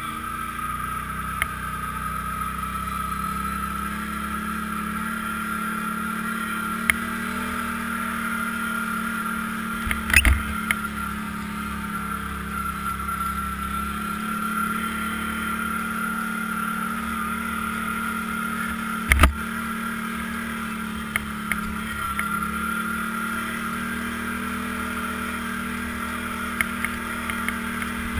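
ATV engine running at a steady pace while riding, with a constant droning tone. Two loud thumps come about ten and nineteen seconds in, and a few lighter knocks are scattered through.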